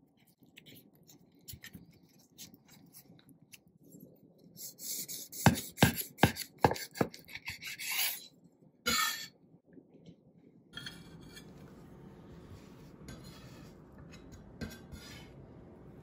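A chef's knife sawing through a rolled tortilla wrap on a wooden cutting board: a rasping cut with a quick series of sharp knocks of the blade against the board, loudest about halfway through, and one last short rasp near the end of the cut.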